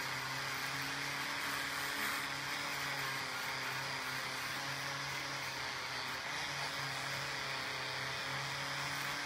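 Angle grinder with an abrasive disc running steadily while grinding rust off a steel sword blade: a steady motor hum under the hiss of the disc on the metal.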